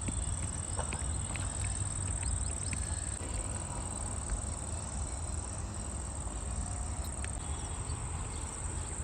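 A steady, unbroken high-pitched insect trill, cricket-like, over a low rumble, with a few faint clicks.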